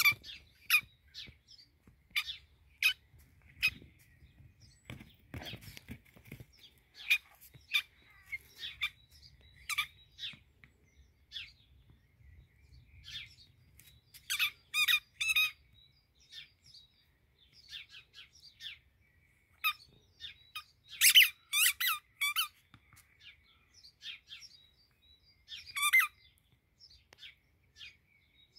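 Squeaky toy ball squeaked again and again by a pet: short, sharp squeaks at an uneven pace, some in quick runs of three or four, with a brief low rumble of handling about five seconds in.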